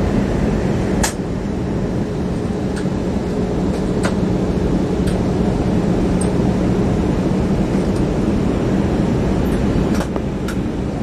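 Steady airliner cabin noise from the engines and rushing air on approach, with a constant low hum and a few short clicks.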